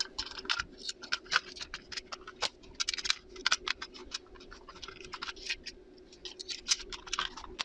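Plastic case of an Aneng A830L multimeter being fitted back together by hand: many irregular small clicks and scratches.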